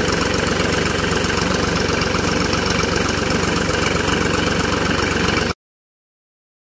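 Tractor engine running steadily while it drives an orchard sprayer, with a constant hiss over the engine note. The sound cuts off suddenly near the end.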